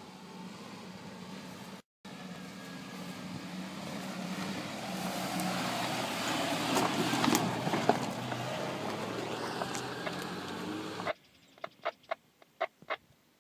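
Suzuki Grand Vitara's engine working under load as it climbs a steep dirt track, growing louder as it comes close, with scattered sharp clicks and knocks. The engine sound cuts off abruptly about eleven seconds in, followed by a few short high chirps.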